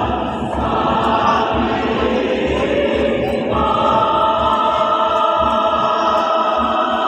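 A choir singing in parts, with a regular low beat pulsing underneath. About halfway through, the voices settle onto a held chord.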